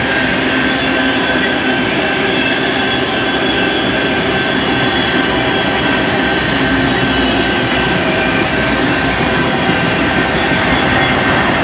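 Freight cars of a long freight train rolling past: a steady, loud rumble of steel wheels on rail, with a thin, steady squeal from the wheels.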